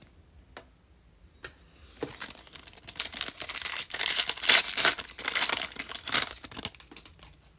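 A trading card pack's wrapper being torn open and crinkled, with a few light clicks, then a dense crackling that lasts about four seconds.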